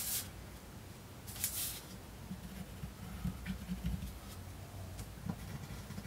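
A paper drilling template rustling as it is slid and pressed flat against a wooden cabinet wall, with a pen scratching marks through it. Soft knocks come from handling in the middle, and small clicks near the end.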